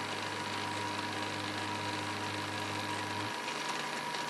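Bridgeport vertical milling machine running with a 3/16-inch two-flute high-speed steel end mill cutting a slot in a metal part: a steady machine noise with a constant high tone. A low hum cuts out about three seconds in.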